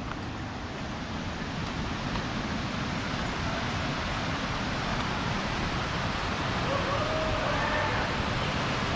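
Waterfall: a steady rush of falling water that grows slowly louder as it comes nearer. A few faint pitched calls sound near the end.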